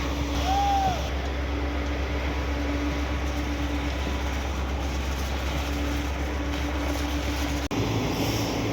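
Heavy diesel machinery running steadily, most likely the engine of a truck-mounted concrete pump, with a constant low hum. The sound changes abruptly near the end.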